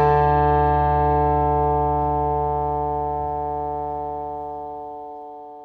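Background music: one held chord slowly dying away, growing fainter toward the end.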